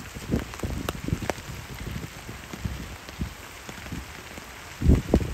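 Rain falling on a pond, a steady light hiss with irregular drop impacts and a brief cluster of louder thuds near the end.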